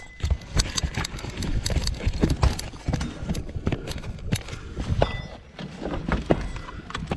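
A run of irregular knocks and clicks, several a second, like handling or footsteps.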